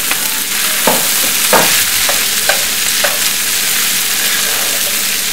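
Metal spatula stirring and mashing a potato, pea and onion filling in a stainless steel frying pan, over a steady frying sizzle, with several short scrapes and knocks of the spatula in the first three seconds.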